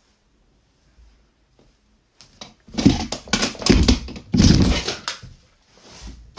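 Rummaging through toys and storage in search of toy cars: a run of loud clattering and knocking that starts about two seconds in and lasts about three seconds, with a shorter clatter near the end.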